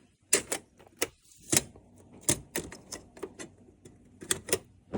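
Irregular sharp clicks and taps of TV speaker brackets being handled and tried into place on the back of a TV set.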